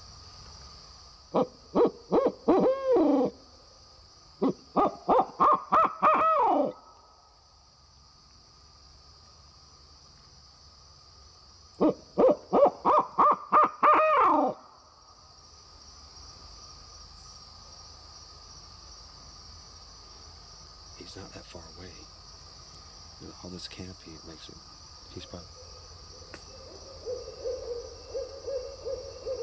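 A hand-blown barred owl locator call giving three runs of rhythmic hoots, each run climbing and then ending on a drawn-out falling note. The owl hoot is used to shock a gobbler into gobbling. A steady high hiss of insects runs underneath.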